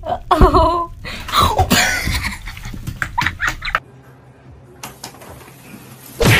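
People laughing and exclaiming over a clip, with clicks mixed in. After a cut, a quiet room, broken near the end by one sudden loud knock.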